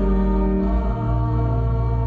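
Slow sung church music: voices on long held chords over a sustained low bass note, which moves to a new note about a second in.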